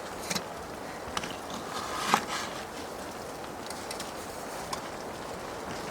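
A few light clicks and knocks from a knife trimming stuffed peppers and from the peppers being set into a cooking pot, the sharpest knock about two seconds in, over a steady background hiss.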